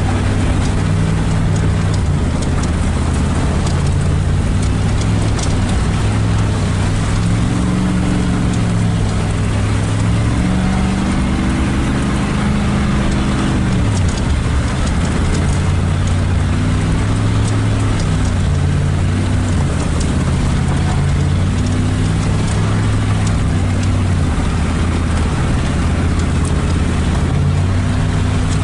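Pickup truck engine pulling while driving a muddy dirt road. Its pitch climbs from about eight seconds in, drops off sharply a few seconds later, then carries on fairly steadily with small rises and falls.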